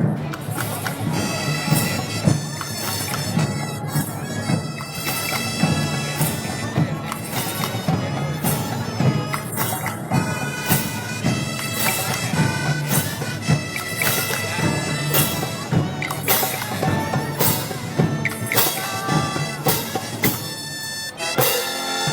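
Festival street music: a reedy, nasal wind melody over regular drum beats, about one a second.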